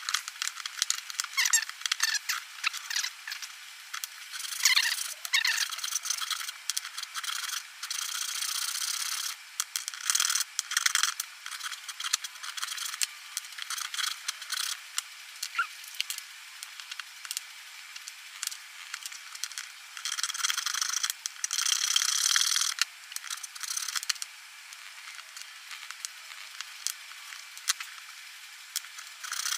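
Hand woodworking played back at ten times speed, so it is shifted up into a rapid high-pitched chatter: wooden strips clicking and clattering on a tabletop and hand-tool scraping on wood.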